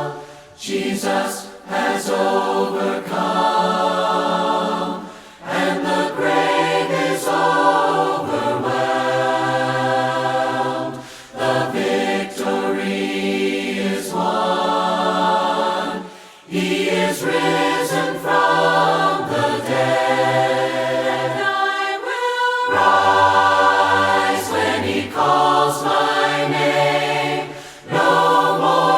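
A cappella choir singing a worship song in harmony, in sung phrases with short breaths between them.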